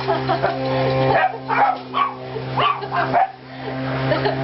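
A dog barking in a string of short barks at a solar robotic lawn mower, over a steady motor hum.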